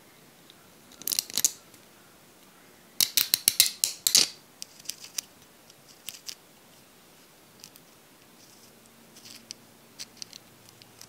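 Small metal mini-engine parts being handled and fitted by hand: sharp light clicks of the aluminium piston and its ring, with a quick run of clicks about three seconds in, the loudest part, then a few faint ticks as the connecting rod and wrist pin are fitted to the piston.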